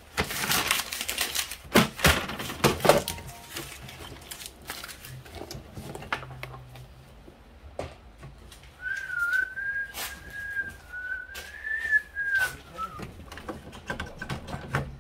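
Sharp clicks and knocks from handling the printhead and the printer in the first few seconds, then a person whistling a short wavering tune for about four seconds.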